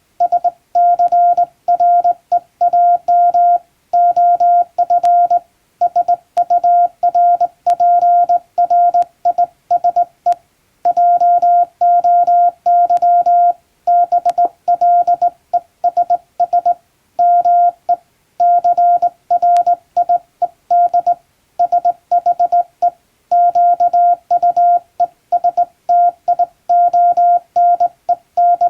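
Morse code sent by hand on a JRC telegraph key, heard as one steady mid-pitched beep keyed into short dits and long dahs, in letter groups with brief pauses between words: an English-language telegram being sent.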